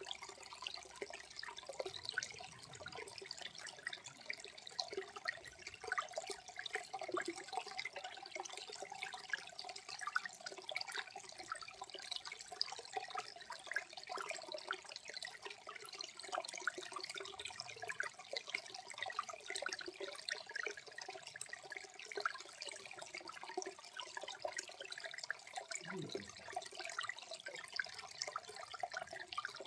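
Small waterfall running low, its water murmuring and splashing over rock in a steady stream of fine gurgles and drips.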